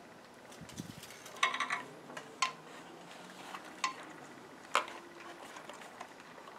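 Screwdriver clicking and clinking against the metal screws and ring terminals of a switch during wiring. A quick cluster of sharp metallic clicks comes about a second and a half in, then single clicks follow every second or so.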